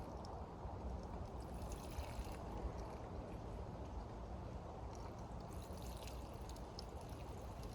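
Gasoline pouring through a homemade funnel into a portable inverter generator's fuel tank, a steady low trickle.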